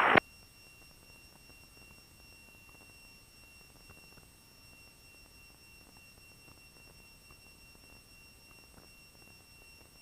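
Faint hiss on an aircraft radio and intercom audio feed between transmissions, with a steady high-pitched whine held throughout.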